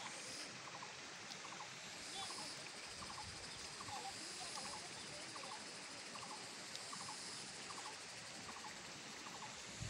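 A small animal calling with a short rattling chirp, repeated a little under twice a second, over a faint steady hiss.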